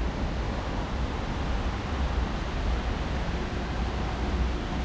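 Steady hiss of rain over a low rumble of city traffic.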